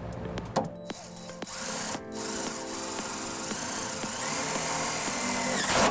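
Power drill driving a self-tapping screw into a pickup's steel frame rail to ground the trailer-wiring harness: a short burst, then a longer run of about four seconds.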